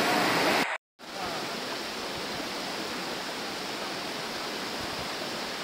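Fast, muddy floodwater rushing in a swollen stream, a steady rush of water. Just under a second in the sound cuts out completely for a moment, then carries on somewhat quieter.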